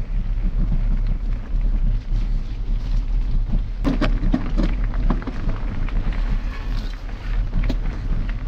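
Mountain bike riding a gravel forest track: a steady low rumble of tyres rolling and wind buffeting the bike-mounted camera's microphone, with sharp clicks and rattles from the bike and gravel starting about four seconds in.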